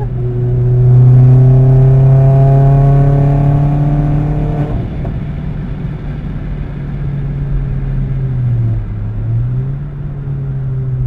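Vauxhall Astra VXR's turbocharged 2.0-litre four-cylinder engine heard from inside the cabin, accelerating hard with its pitch climbing for about four and a half seconds, then dropping away abruptly. It then runs steadier and quieter, dipping briefly near the end before picking up again.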